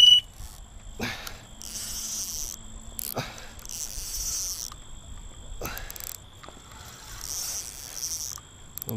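Crickets trilling steadily. An electronic carp bite alarm's high tone cuts off right at the start. About three second-long bursts of hiss and a few sharp clicks come in between.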